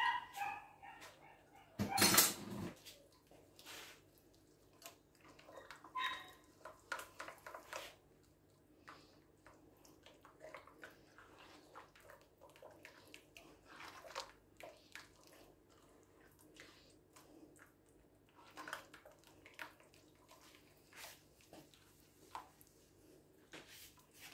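Hands squelching and kneading soft dough in a glazed clay bowl, with many faint wet clicks. A dog barks and yelps a few times in the first several seconds, the loudest about two seconds in.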